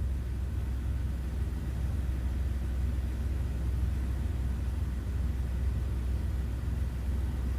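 Jeep Wrangler TJ's engine idling: a steady low rumble.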